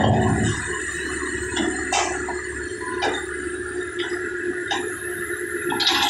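Backhoe engine running steadily with a held hydraulic whine while its bucket works a steel sheet pile off the trailer. Sharp metal clanks come several times, and near the end a loud grinding scrape of steel on steel as the pile slides across the others.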